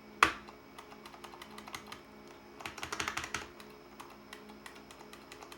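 IBM Model M buckling-spring keyboard being typed on as its keys are tested: one loud clack just after the start, then scattered key presses and a quick flurry of typing about three seconds in.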